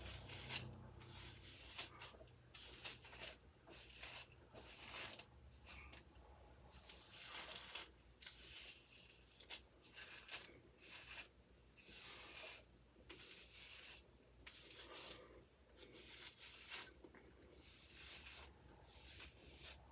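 Hands rubbing and scrunching styling product through hair: faint, irregular rustling strokes, with one short sharper click about half a second in.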